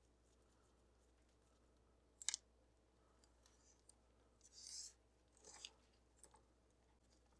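Faint workbench handling sounds of small parts: a light click about two seconds in, a short scrape a little past the middle, then a few more small clicks, with near silence between them.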